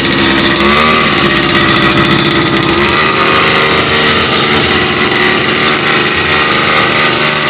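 Small brush-cutter engine of under 30 cc, turning a boat propeller in open air, running loud and fast. Its revs climb in the first second, then it holds a steady run from about three seconds in.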